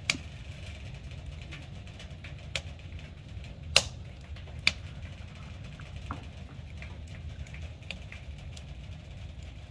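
Wooden boards knocking and clattering as they are unloaded from a pickup truck's bed: a few sharp knocks, the loudest about four seconds in, over a steady low rumble.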